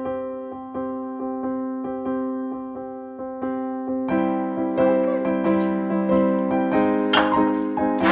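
Background electric piano music, a steady pattern of repeated notes. A short burst of noise cuts through near the end.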